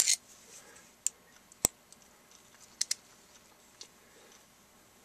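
A few sharp metal clicks and one louder knock about a second and a half in, as a long steel wood screw is handled and set against the tip of a magnetized screwdriver.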